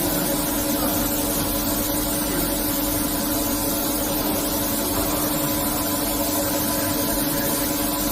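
SNK RB-200F CNC bridge mill running steadily: a constant hum with a steady whine and a continuous hiss over it.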